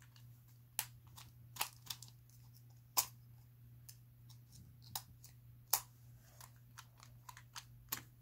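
Irregular sharp plastic clicks and knocks from a jointed toy dinosaur figure being handled, its limbs and moving parts worked by hand. A faint steady low hum sits underneath.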